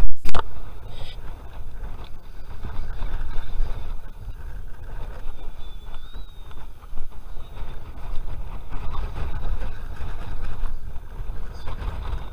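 A steady low rumble of wind on a chest-mounted camera's microphone, after two loud knocks right at the start.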